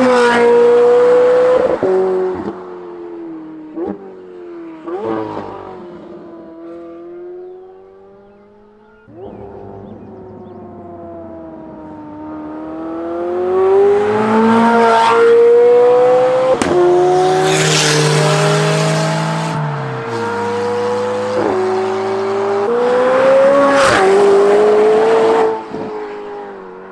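McLaren 720S twin-turbo V8 with a non-valved titanium double X-pipe exhaust and catless downpipes, heard from outside, accelerating hard. The pitch rises through each gear and drops sharply at every upshift. The sound fades over the first several seconds, returns loud for a long run of upshifts, and falls off sharply just before the end.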